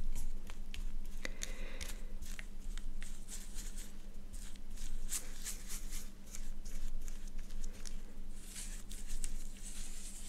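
Close-miked rubbing and wiping on the camera lens as makeup is wiped off it, with irregular clicks, crackles and patches of rustling friction. A faint steady hum runs underneath.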